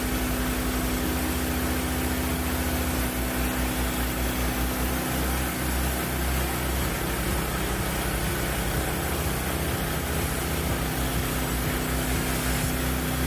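Engine running steadily at idle, a constant hum with a low throb that shifts slightly about three seconds in, from the portable sawmill's engine being started up for a cut.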